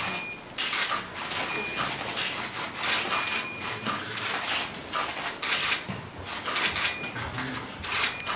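Camera shutters clicking in quick, irregular bursts, with several short high beeps from camera autofocus confirmation.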